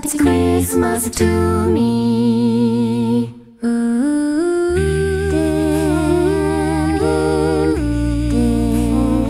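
A cappella vocal harmony from Synthesizer V singing voices humming sustained chords without words over a low vocal bass line, with a brief break about three and a half seconds in.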